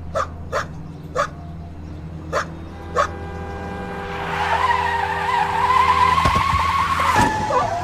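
A dog barks five times in quick, uneven succession. Then car tyres screech under hard braking, a loud high squeal of about three seconds that breaks off abruptly near the end.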